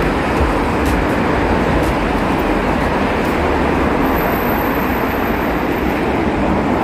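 Steady din of road traffic under an elevated roadway, a continuous rumbling noise with no single vehicle standing out.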